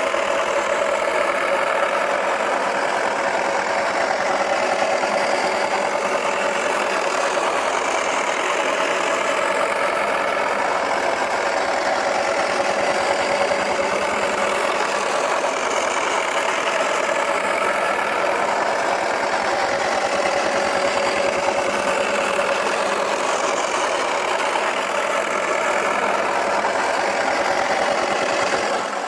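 Wacky Washer toy washing machine running, its small motor making a steady, noisy whirr that eases off right at the end.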